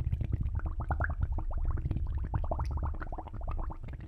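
Underwater bubbling sound effect: a dense stream of small bubbles gurgling over a low rumble, fading near the end.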